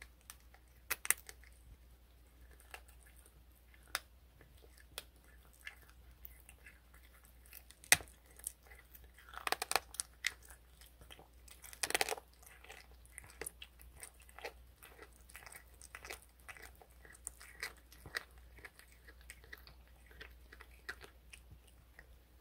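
Cat chewing a raw quail leg, crunching on the bone in sharp, irregular crunches. The loudest crunch comes about eight seconds in, with thicker runs of crunching around ten and twelve seconds.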